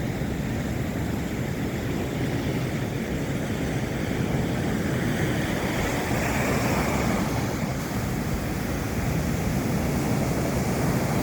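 Sea surf washing on the beach, mixed with wind rumbling on the microphone: a steady rushing noise without a break.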